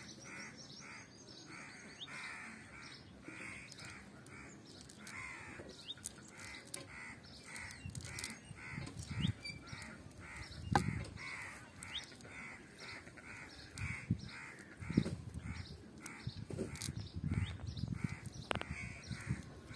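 A bird calling over and over, about two calls a second without a break, over soft knocks and clicks from a wet cast net being handled.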